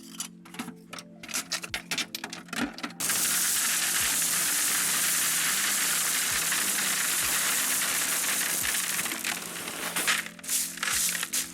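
Stones and filter media clinking and clattering as they are placed in a bog filter, then, about three seconds in, a loud steady rush of loose gravel or media pouring in that lasts about six seconds before the clinking resumes. Background music plays under it.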